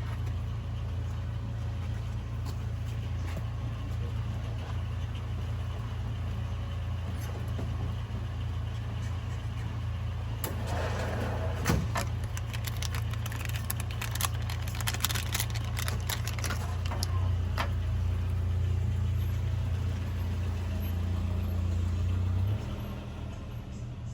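LS-swapped car's V8 engine idling with a steady low hum. From about ten seconds in come small clicks and rattles of a turn-signal bulb and socket being handled. The idle drops quieter shortly before the end.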